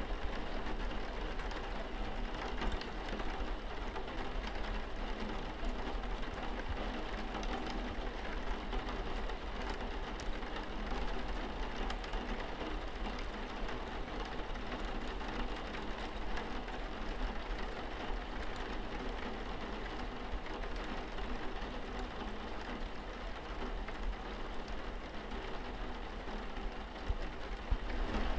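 Steady rain pattering on a window pane, a dense even patter of drops with a constant low rumble underneath.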